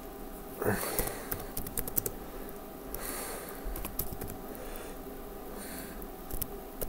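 Computer keyboard keys being typed in short, irregular clusters of clicks.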